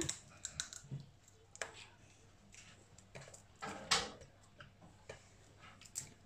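Small, scattered clicks, cracks and rustles of people eating shrimp and crab with their hands, peeling shells at the table, with a louder clatter about four seconds in.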